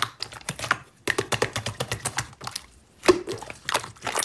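Slime being pressed and squeezed by hand, making many quick, crisp little clicks and pops, with brief pauses between squeezes.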